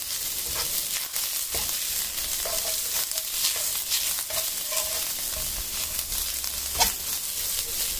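Diced onions sizzling in oil in a metal wok as they are stir-fried until fragrant. A metal spatula scrapes and clinks against the wok, with the loudest clink near the end.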